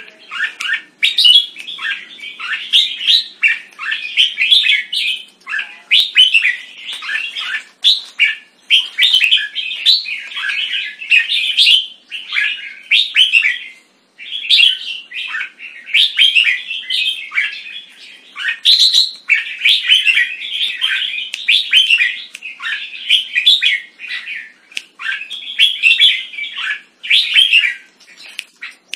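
Red-whiskered bulbul singing loudly, phrase after phrase with short pauses between, and one brief break about halfway through.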